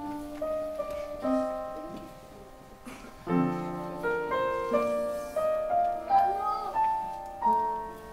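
Upright piano playing a melody of single notes, each ringing and dying away, with a fuller chord struck about three seconds in.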